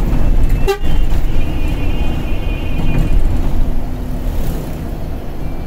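Steady low rumble of an intercity bus's engine and tyres, heard from inside the cabin. About a second in, a brief high-pitched tone sounds for under two seconds.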